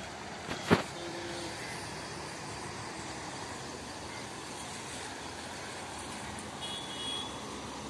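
Steady rush of flowing river water, with one sharp click less than a second in.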